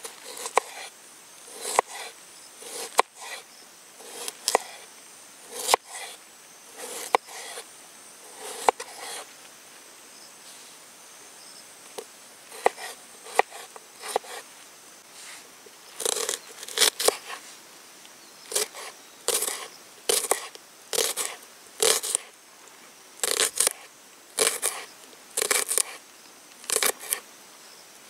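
Folding knife cutting a raw potato and then a small red onion on a bamboo cutting board: a run of short, crisp cuts, each with a tap of the blade on the wood. There is a pause of about two seconds before the middle.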